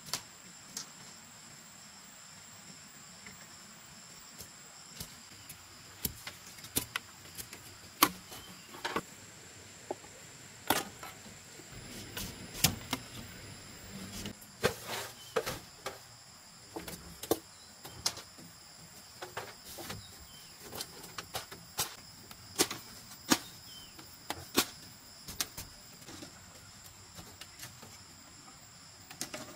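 Irregular sharp knocks and clacks of bamboo being worked by hand, as poles are cut and split slats are fitted into a coop wall. Under them runs a steady high insect drone.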